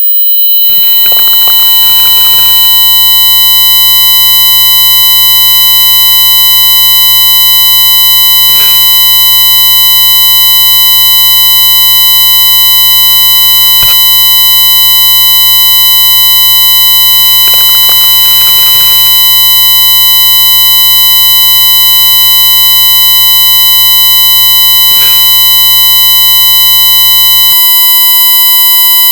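Synthetic tinnitus-relief sound: many steady high-pitched electronic tones held together over a low hum, unchanging and loud. The low hum drops out near the end, leaving the high tones.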